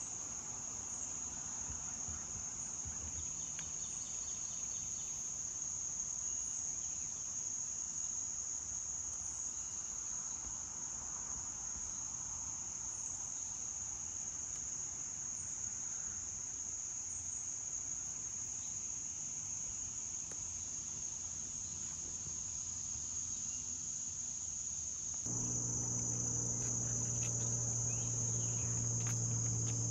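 Steady high-pitched chorus of insects droning without a break in swamp forest. Near the end a low steady hum joins in.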